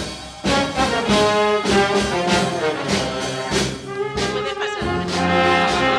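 Brass band music: brass instruments playing a melody over a steady beat of about two strokes a second.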